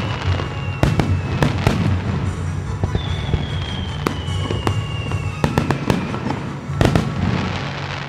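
Fireworks display: shells bursting in a string of sharp bangs, the loudest near the end, over music playing throughout. Two long, slowly falling whistles run through it.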